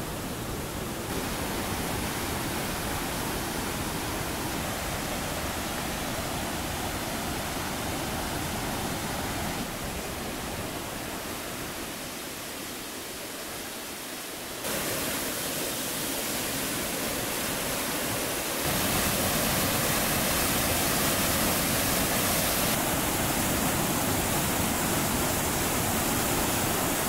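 Johnston Creek's Upper Falls and the whitewater rapids below them, a steady, dense rush of falling and churning water. Its loudness and tone jump abruptly several times and are loudest in the last third.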